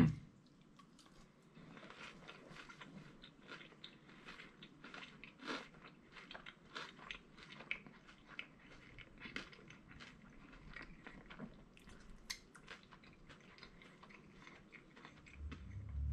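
A man chewing a mouthful of Philly cheesesteak egg roll close to the microphone: faint, irregular crunching with small crackling clicks.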